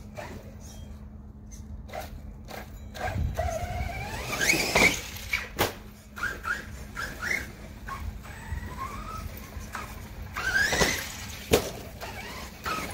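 Redcat Landslide XTE electric RC monster truck on 4S LiPo power, its brushless motor whining up and down in pitch in several throttle bursts. There are sharp knocks about halfway through and again near the end as the truck hits the ground.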